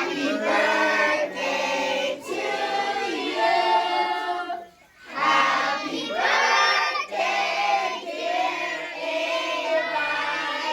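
A crowd of voices singing together, with a short pause for breath about five seconds in.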